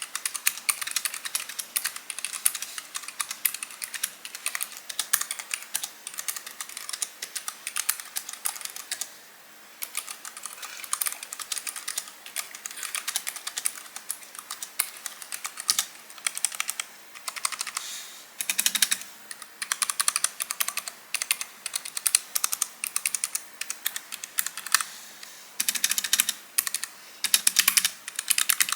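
Keychron K3 V2 low-profile mechanical keyboard with optical red switches being typed on quickly and continuously, a stream of not-clicky key clacks with a brief pause about nine seconds in.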